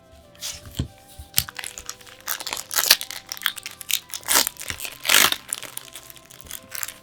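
Packaging being crinkled and torn open by hand, a dense run of crackling rustles that is loudest in the middle, over quiet background music.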